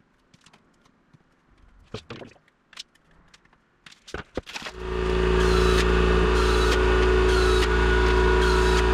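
Light taps and handling of aluminium parts, then about five seconds in a pneumatic air drill starts and runs steadily, drilling holes in an aluminium aircraft bulkhead.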